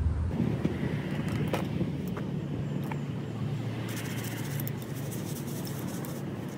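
Steady low outdoor rumble with a few faint clicks and rustles as a magnet-fishing rope is uncoiled and handled.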